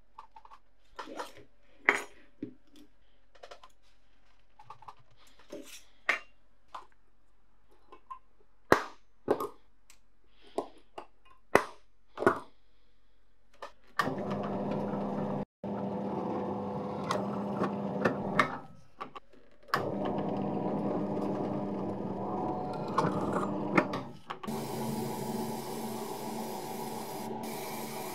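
Scattered sharp clicks and knocks of small metal parts, then a power tool running steadily for about ten seconds, with two brief stops. Near the end it gives way to a steady hissing noise.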